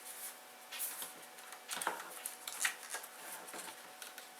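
Plastic dashboard parts of a 1999 Honda Civic being handled and worked loose by hand: a series of light clicks, taps and short scrapes.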